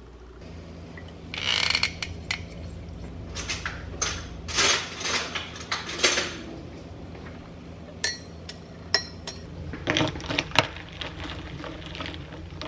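Kitchen clatter of glassware and utensils: repeated clinks and knocks on a countertop while drinks are made, with a few short rushing noises, over a steady low hum.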